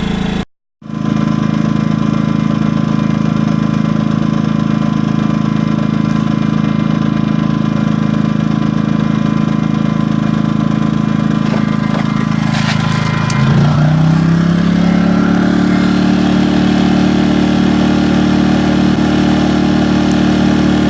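WEN 56200i inverter generator's small four-stroke engine running steadily. A few clicks come about 12 to 13 seconds in, and then the engine speeds up to a higher steady pitch.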